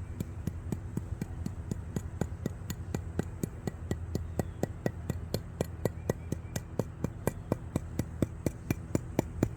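Rapid, evenly spaced tapping of a hand tool, about five taps a second, jiggling wet concrete so that it settles down into the cracks of a brick repair. A steady low hum runs underneath.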